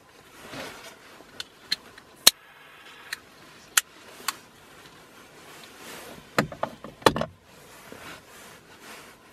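Scattered sharp clicks and knocks, a few at a time, the loudest a little over two seconds in, then a quick rattling cluster of knocks about six to seven seconds in, with soft rustling between.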